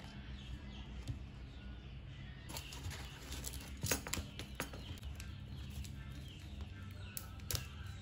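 Hands handling a plastic-wrapped manga volume and a paper card over a cardboard mailer: scattered light taps and crinkles of the wrapping, over a steady low hum.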